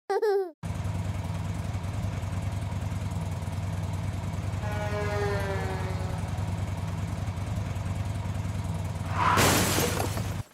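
Engine running steadily with a low, even rumble. A faint gliding tone rises and falls partway through, and a loud burst of hiss comes near the end.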